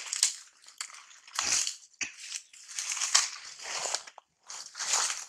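Macaque biting and chewing crunchy food, a series of crisp crunches about one a second.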